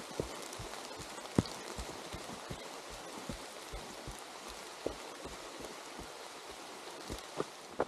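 A runner's footfalls on a wet forest trail, about two and a half steps a second, over a steady hiss of rain.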